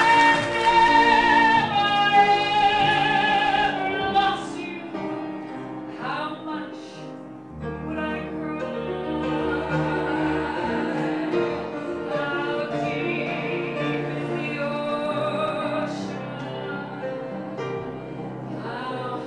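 A woman singing into a microphone with grand piano accompaniment. She holds one long, loud high note for about the first four seconds, then sings on more softly over the piano.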